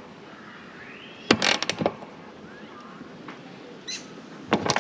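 Ratchet wrench clicking in short runs as a 6 mm bolt is tightened: a quick burst of clicks a little over a second in, and a few more near the end.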